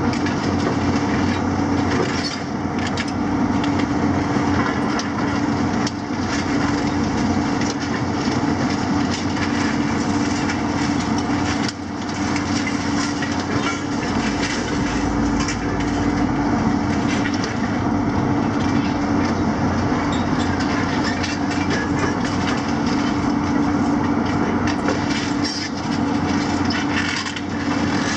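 Demolition excavators working: a JCB with a demolition grab tearing into a concrete building and a Hitachi 250 grabbing rubble. Their diesel engines and hydraulics run with a steady hum under constant crunching, cracking and clattering of broken concrete and debris.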